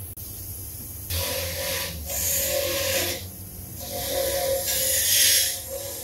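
Bench grinder grinding a small metal part held against its spinning wheel, in repeated rasping passes a second or two long, starting about a second in.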